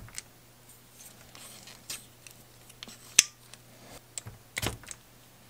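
Spring-loaded solder sucker (desoldering pump) worked against a soldering iron on a circuit board joint: scattered light clicks and scrapes, then one sharp snap a little past three seconds in as the plunger fires to pull up the molten solder. More clicks and scraping follow about four and a half seconds in as the pump is handled.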